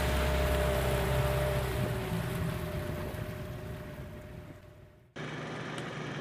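Motorboat engine running steadily under a wash of water and wind noise, fading out about five seconds in. After an abrupt cut, quieter open-air background noise.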